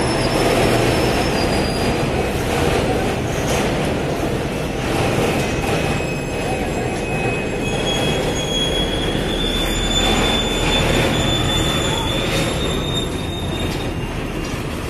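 Rail-laden BRNA flat wagons rolling slowly while long new steel rails are unloaded off them, a continuous metallic rumbling scrape with high squeals that come and go.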